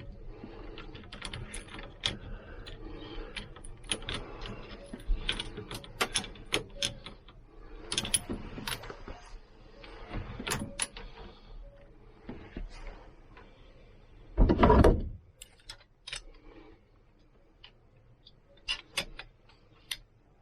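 Hand tools working metal clamp bolts: irregular ratcheting clicks and metal clinks as the clamps are tightened down, with one louder brief thump about fourteen and a half seconds in. The clicking thins out to a few sparse clicks near the end.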